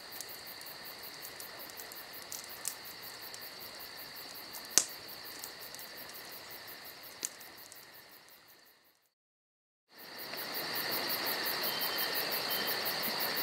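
Steady high-pitched chirring of crickets with a few faint clicks. It cuts out completely for about a second some nine seconds in, then comes back louder.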